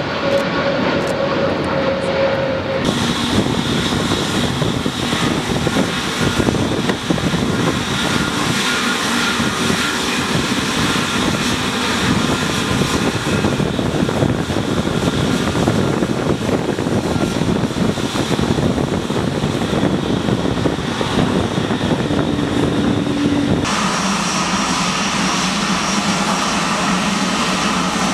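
Jet airliner engines in three edited shots, with abrupt changes about three seconds in and near the end: first a Boeing 787-8 climbing out with a steady whine over its roar, then an Airbus A320neo taxiing, then a Rolls-Royce Trent XWB–powered Airbus A350-1000 taxiing. Each is a continuous jet engine roar.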